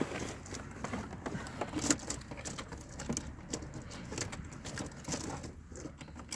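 Faint scattered clicks and handling noises of two pairs of pliers gripping and tugging a broken hood-release cable, in a try to pull the hood latch open.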